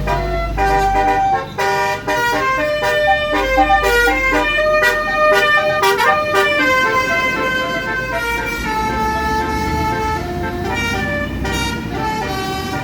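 Tour bus's basuri musical air horn playing a melody of stepped notes, quick at first and then slower held notes in the second half, over a low engine rumble.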